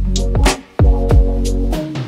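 Background music with a beat: deep kick drums that drop in pitch, sharper snare or clap hits between them, and held bass notes. The music drops out briefly just before the middle.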